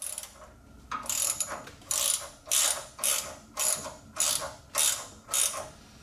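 Ratchet wrench tightening an M8 bolt with a split washer: about eight back-and-forth strokes, nearly two a second, each a short burst of ratchet clicks.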